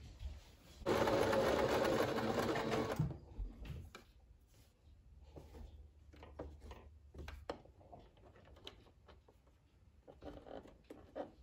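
Electric domestic sewing machine stitching in a run of about two seconds, starting about a second in and then stopping. After that come small clicks and rustles as the fabric is shifted and repositioned under the presser foot.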